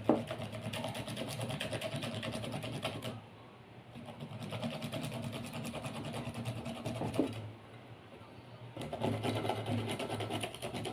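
Bitter kola nut being rubbed quickly on a hand grater: fast, even scraping strokes in three runs, broken by short pauses about three seconds and seven and a half seconds in.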